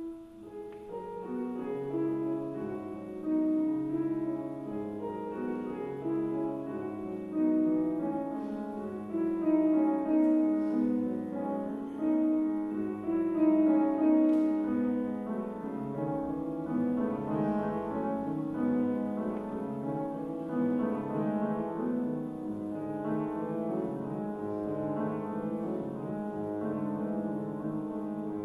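Grand piano playing a classical piece. It starts from silence with the first notes and goes on with held, overlapping notes and chords.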